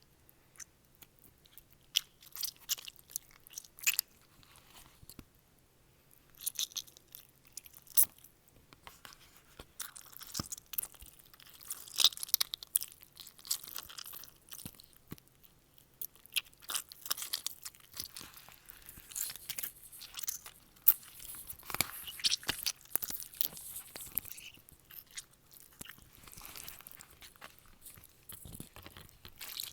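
Foley crunching and chewing sounds for a zombie eating brains: irregular crackles, snaps and bites, sparse at first and denser from about a third of the way in.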